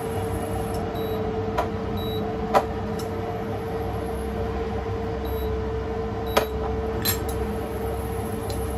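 Steady hum of an electric kitchen appliance motor, a constant mid-pitched tone over a low drone, with a few light clicks or knocks, the sharpest about two and a half seconds in.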